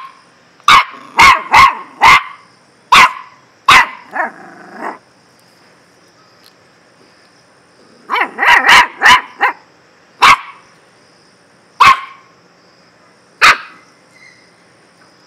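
Puppy barking in sharp, high yaps: a quick run of barks, a pause of a few seconds, a fast burst of four or five, then single barks about a second and a half apart.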